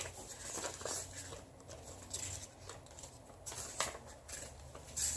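Faint handling noise of packaging and printed manual: scattered small clicks and rustles over a low steady hum.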